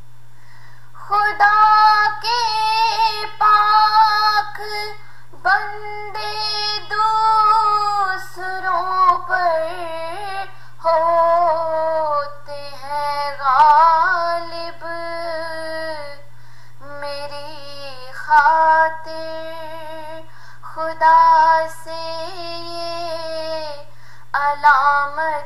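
A female voice singing an Urdu nazm unaccompanied, in long drawn-out melodic phrases separated by short pauses, over a faint steady low hum.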